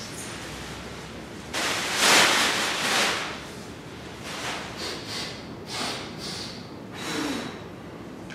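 Clear plastic bag rustling and swishing as it is swung and flung through the air: one long loud rustle about two seconds in, then a string of shorter swishes and crackles about once a second.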